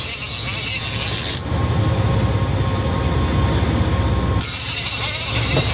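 Big-game lever-drag trolling reel's drag paying out line in two hissing runs, one at the start and another from about two-thirds through, as a hooked amberjack pulls against it. A boat engine hums low underneath.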